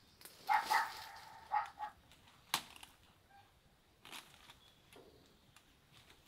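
Trapped wild chicken squawking twice in alarm as it is held, about half a second in and again about a second and a half in, then a sharp click and faint rustling in the undergrowth.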